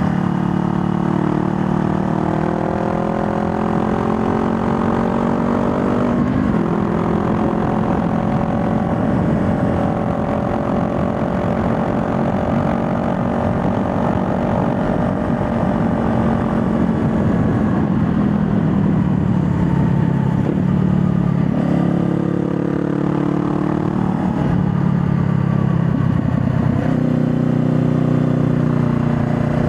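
2020 Honda Rebel 500's parallel-twin engine under way, its pitch climbing as it accelerates and dropping sharply at a gear change about six seconds in. The revs sag in the middle, then rise again, with another shift near the end.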